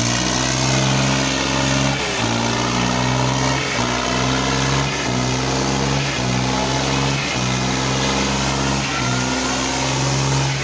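Diesel engine of a modified Swaraj 855 tractor running hard under heavy load while dragging a disc harrow through dirt. Its note is steady but dips briefly every second or two.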